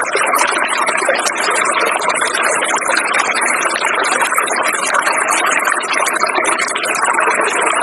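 Steady rushing of river water, with a dense, high-pitched chatter of nature sounds over it.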